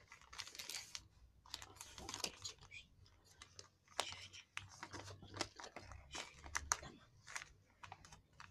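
Lined notebook paper being folded into a paper airplane by hand: soft rustling with many short, sharp crinkly clicks as the folds are creased down.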